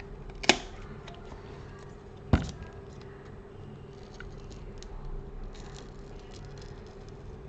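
Two sharp clicks about two seconds apart, then faint scattered ticks and scrapes, over a steady low hum: small tools and plastic parts being handled during a phone teardown.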